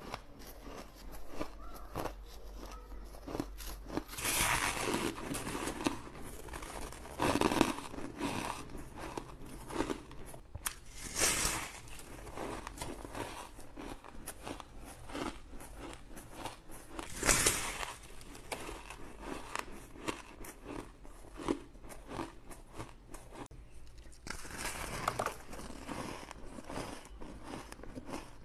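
Close-miked bites and chewing of soft, frosty white ice: an uneven run of crunches, with several louder crunching bites standing out.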